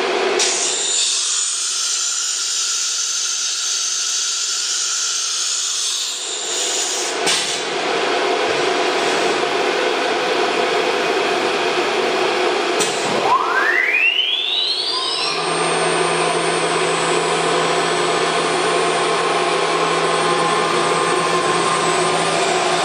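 CNC router machinery running with a steady rushing hum and a clack about seven seconds in. About halfway through, the router's 9.6 kW HSD air-cooled spindle spins up, a whine rising steeply in pitch over about two seconds, and then runs at a steady high speed.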